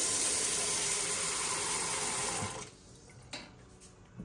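Kitchen tap running steadily, shut off about two and a half seconds in, followed by a couple of faint knocks.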